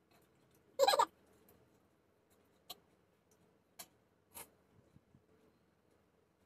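Quiet eating by hand from steel plates: a brief vocal sound about a second in, then three faint, sharp clicks.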